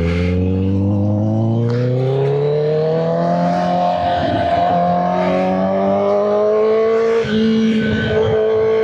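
Inline-four sportbike engine accelerating: its pitch climbs steadily for about three and a half seconds, then holds at a steady cruising pitch, with a small step up in pitch near the end.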